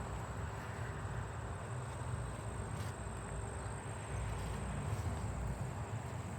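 Steady background noise: a low rumble with a constant high-pitched tone held throughout, and one faint click about three seconds in.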